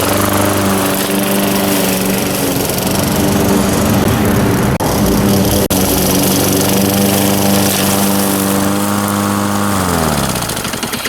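Tecumseh engine on a Lawnboy walk-behind mower running steadily after a tune-up and carburetor replacement. Its speed falls away in the last second or so.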